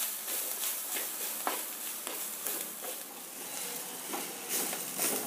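Spatula stirring and scraping mashed potato and fried onions around an earthen kadai, in repeated uneven strokes, over a light sizzle of hot oil.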